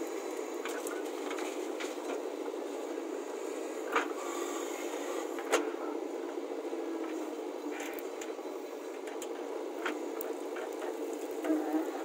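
JCB 3DX backhoe loader's diesel engine running steadily while it digs and loads soil, with a few sharp clicks about four and five and a half seconds in.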